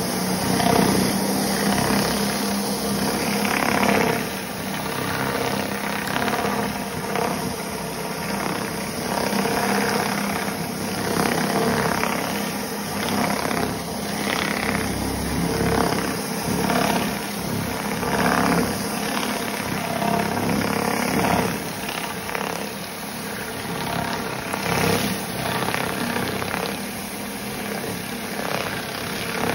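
Pressure-washer surface cleaner running on wet tile decking: the steady whirring hiss of its spinning spray bar, fed with hot water from a pressure washer, swelling and easing every second or two as it is pushed back and forth.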